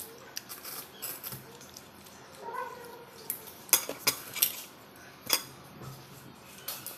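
Light clicks and clinks of small cooked seashells (batad) being handled and picked at, with a handful of sharp ticks clustered around the middle.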